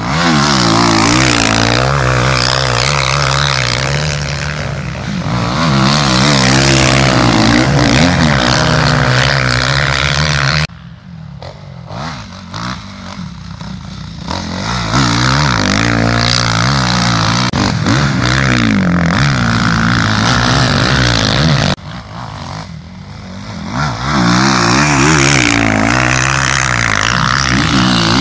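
Motocross bike engines revving hard through corners, the pitch rising and falling with throttle and gear changes as bikes pass close by. Twice, about a third and two-thirds of the way through, the sound drops suddenly to a fainter engine and then builds up again.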